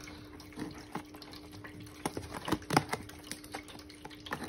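Plastic cat-treat container being handled and its flip lid opened: a scatter of light plastic clicks and rattles.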